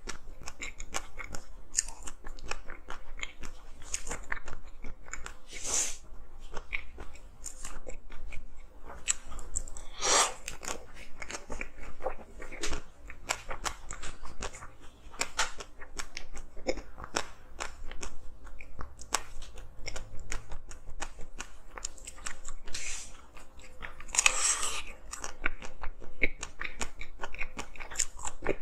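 Frozen ice being bitten and chewed close to the microphone: a continuous run of small crackling crunches, with a few louder bites, the biggest near the end.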